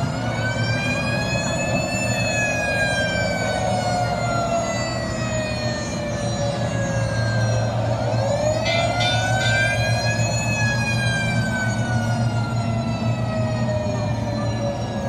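Fire truck siren wailing slowly in two long rise-and-fall sweeps, each climbing for a couple of seconds and then sliding down for several more, over a steady low hum.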